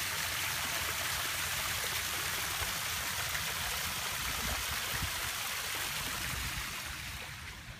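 Small garden-pond waterfall splashing steadily into the pond, a continuous rush of running water that fades a little near the end.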